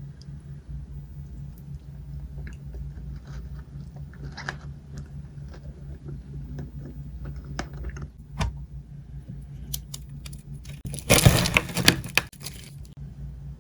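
Crunchy sesame-filled chocolate bar crunching: scattered sharp cracks and clicks, then a loud, dense crunch about eleven seconds in that lasts over a second, over a steady low hum.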